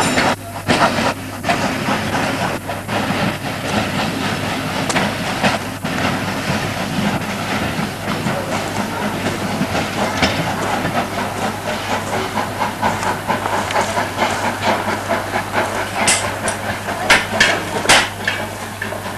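Steam train on a heritage railway running: a steady hiss with the clatter of wheels over the rail joints, and a few sharp clanks near the end.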